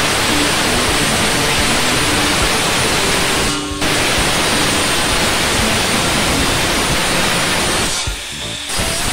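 Handheld angle grinder grinding along the edge of galvanized steel sheet: a loud, steady rasping hiss that eases off briefly twice, once about three and a half seconds in and again near the end. Background music with a simple melody plays under it.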